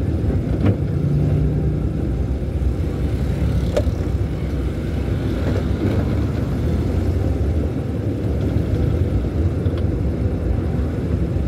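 Car engine and tyre noise heard from inside the cabin while driving slowly in traffic: a steady low rumble, with a couple of faint clicks.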